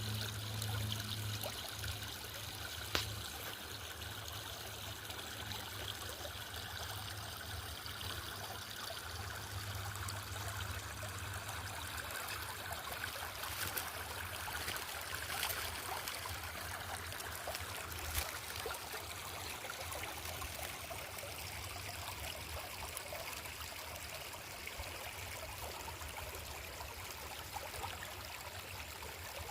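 Forest stream trickling steadily, with a low rumble that comes and goes and a couple of faint clicks.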